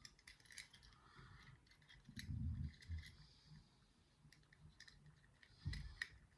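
Faint small metallic clicks and scrapes as a tiny pipe lock pick is worked back out of a four-lever drawer lock, with two dull handling knocks.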